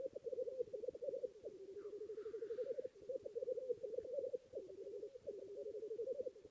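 Fast hand-played drumming with a hollow, pitched tone, a quick run of beats in short phrases whose pitch steps up and down.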